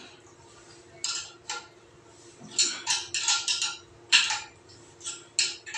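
A metal spanner clinking against the nut on a toilet cistern's mounting bolt as the nut is turned and tightened: about ten sharp metallic clicks, several in quick succession near the middle.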